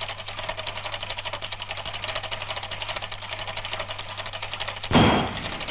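Film projector running: a rapid, even mechanical clatter of about ten clicks a second over a low steady hum. A sudden loud thump comes about five seconds in.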